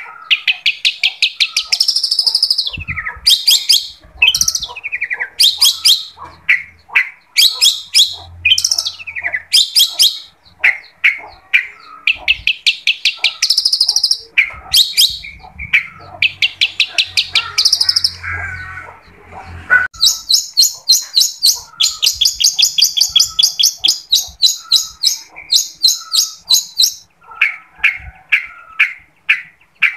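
Long-tailed shrike singing vigorously: bursts of very fast repeated chattering notes a second or two long, mixed with shorter sweeping whistles. A long, unbroken run of rapid notes comes in the last third.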